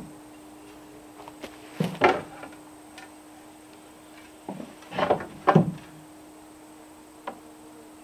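Wooden knocks and bumps of timber being handled and fitted into a frame, the loudest about two seconds in and a close pair about five seconds in.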